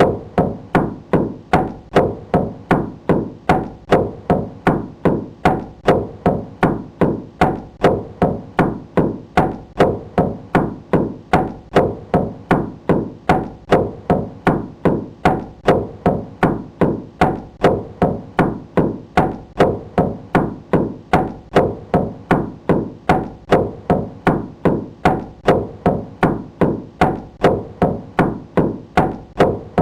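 Knocking on a wooden door: a steady, unbroken run of evenly spaced knocks, about two a second.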